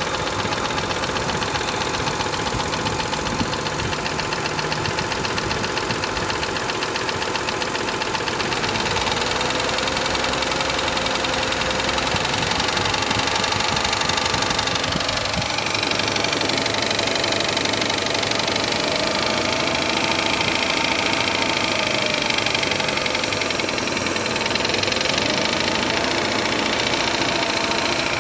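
Mitsubishi Montero Sport engine running steadily with a regular knock, a knock that has newly appeared in this engine.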